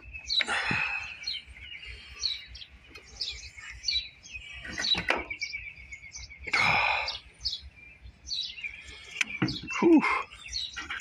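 Small birds chirping over and over in short high calls, with a few brief louder noises about five, seven and ten seconds in.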